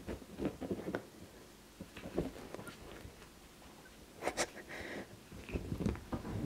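Scuffling of a Siamese cat wrestling with a hand on sofa upholstery: irregular soft scrapes, rustles and bumps of paws and body on the fabric, busiest about four seconds in and again near the end.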